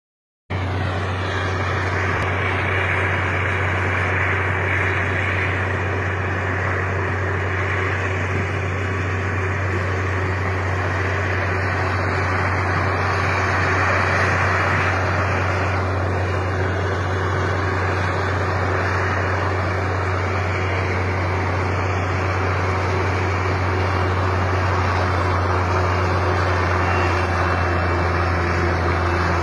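A heavy vehicle engine running steadily, with a constant low hum under an even rushing noise.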